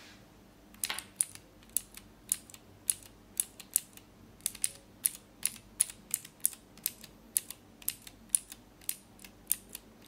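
Cherry MX Blue mechanical keyboard switches being pressed one key at a time: a steady run of sharp clicks, about two a second, starting about a second in. This is the loud click that blue clicky switches are known for.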